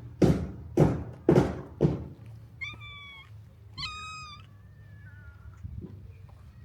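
Four quick thuds about half a second apart, then a cat meowing twice, followed by a fainter third call.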